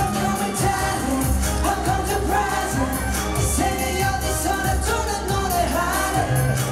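A live K-pop song with sung vocals over a steady bass line and beat, heard loud through an arena concert's sound system.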